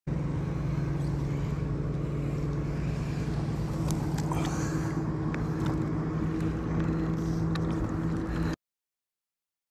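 Boat motor running with a steady, even hum. A few small water splashes come as a bass is let go over the side, and the sound cuts off suddenly near the end.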